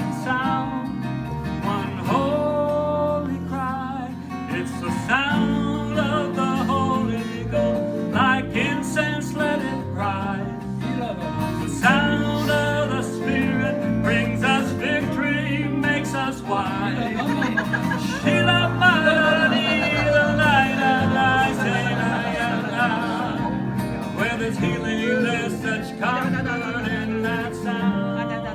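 A man singing a slow worship song with acoustic guitar accompaniment. The singing has long, wavering held notes past the middle.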